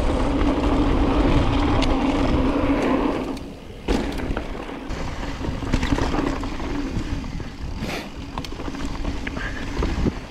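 Mountain bike rolling fast down a dirt bike-park trail: steady rushing noise of wind on the microphone and tyre rumble, which dips briefly and is broken by a sharp knock about four seconds in. After that come quieter rolling noise and scattered rattles and clicks.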